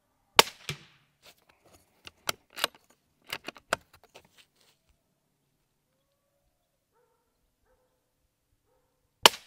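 .22 rifle firing a subsonic round: a sharp crack about half a second in, then a run of clicks and knocks as the rifle is handled, and a second equally sharp crack near the end.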